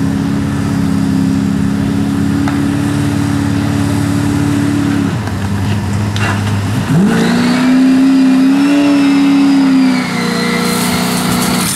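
Old pickup truck's engine running steadily, dropping away about five seconds in, then revving up about seven seconds in and held at higher speed for a few seconds before easing back.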